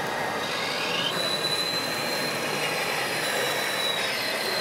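High, thin electric whine from a radio-controlled model machine's motor, rising in pitch about a second in and then holding steady, over a steady background din.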